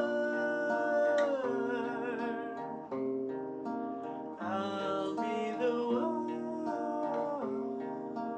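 Song music: plucked acoustic guitar with a wordless sung vocal line whose held notes slide downward.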